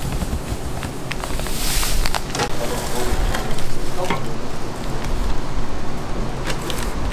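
Corn dog shop kitchen noise: a steady frying sizzle with scattered clicks and clatter of utensils, and a brief brighter hiss about two seconds in.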